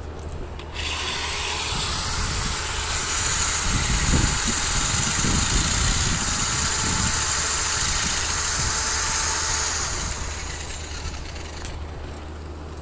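Corded electric drill running at full speed, spinning a paint-covered canvas so the paint flies off, a steady high whir with the canvas whooshing through the air. It starts about a second in and winds down near ten seconds in.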